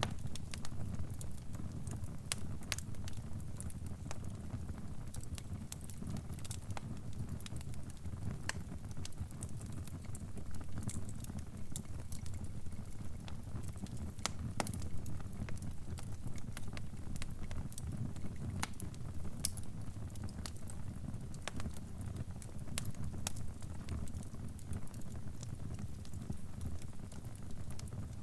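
Fire crackling: a steady low rumble with irregular sharp pops and snaps scattered throughout.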